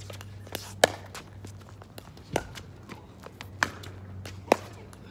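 Pickleball rally: sharp pops of paddles striking the plastic ball and the ball bouncing on the hard court, four loud hits spaced about a second or so apart with fainter knocks between. A low steady hum runs underneath.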